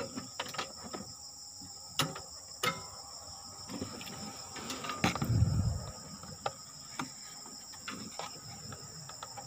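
Sharp scattered clicks of a test-light probe tapping against fuses in a machine's fuse box, over a steady high insect chirring. A low thud about five seconds in is the loudest sound.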